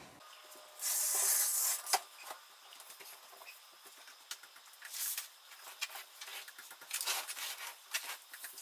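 Curtains being drawn and handled at a window: fabric rustling and a hiss of the curtain sliding along its rod about a second in, then a sharp click and scattered light rustles and clicks.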